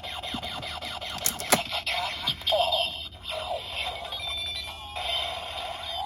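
Electronic sound effects and music from a CSM Gatack Zector's built-in speaker. Rapid repeating chirps in the first second, two sharp clicks about a second and a half in, then a run of shifting electronic tones.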